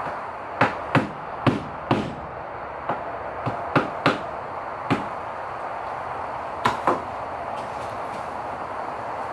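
A small plastic-faced mallet tapping pins and handle scales together on a knife, about eleven sharp, irregular knocks that end with a close pair, over a steady background hiss.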